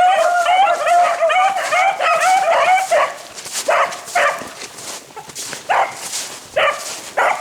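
Beagles baying while running a rabbit's track. A fast, overlapping string of barks runs for about three seconds, then breaks into single bays spaced about a second apart.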